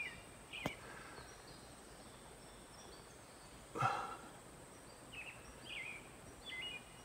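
Wild turkey poults peeping: faint, short, high down-slurred peeps scattered through, with a sharp click about two-thirds of a second in and a brief rustle near four seconds.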